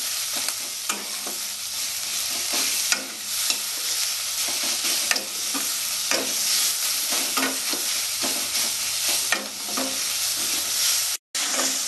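Onions, green chillies and ginger-garlic paste sizzling in mustard oil in a heavy black kadai, with a metal spatula scraping and knocking against the pan as they are stirred. The sound drops out for a moment near the end.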